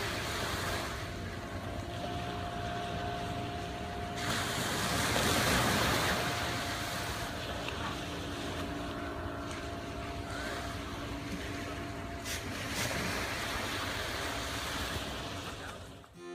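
Beach ambience: wind on the microphone and small waves at the shore, with the steady drone of a distant speedboat engine. It fades out near the end.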